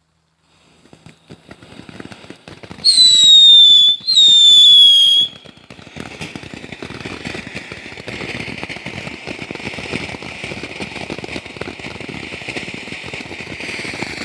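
Consumer firework going off. It starts with sputtering crackles, then gives two loud whistles of about a second each, each sliding slightly down in pitch. Then comes a steady hissing, crackling spray of sparks lasting about eight seconds.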